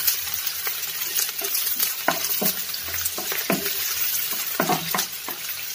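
Chopped onion, garlic and dried red chillies sizzling in hot mustard oil in a frying pan, with a steady hiss. A spatula stirs them, scraping and tapping against the pan a few times.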